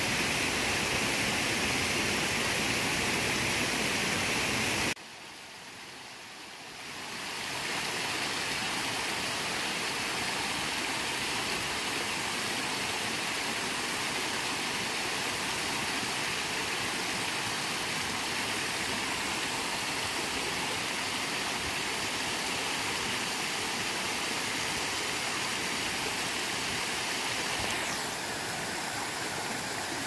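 Shallow mountain stream rushing and splashing over rocks in small cascades, a steady rush of water. About five seconds in it drops away abruptly and swells back up over a couple of seconds, then runs steadily on.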